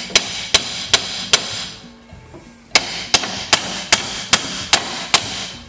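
Hammer striking a steel punch against a steering wheel hub clamped in a vise, driving out the pin that holds the wheel on its shaft. The metal blows come in two runs at about two and a half a second: four, a short pause, then seven more.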